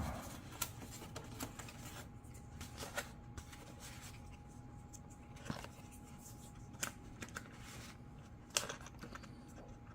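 Faint, irregular clicks and rustles from hands handling and fitting plastic landing-gear pieces into a foam RC jet airframe, with a faint steady hum underneath.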